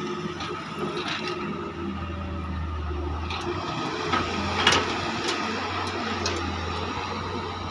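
Doosan wheeled excavator's diesel engine running steadily with a steady high whine as it swings and dumps a bucket of soil. Several sharp knocks of metal and soil come through, the loudest a little past halfway.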